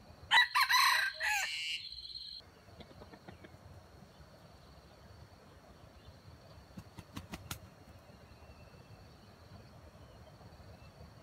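A red junglefowl rooster crowing once near the start, a single crow of about two seconds that cuts off abruptly. A few faint sharp clicks follow about seven seconds in.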